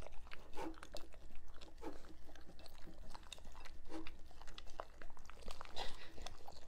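German shepherd licking and chewing a soft treat from a small bowl: a quick, irregular run of wet clicks and smacks from its tongue and jaws against the dish.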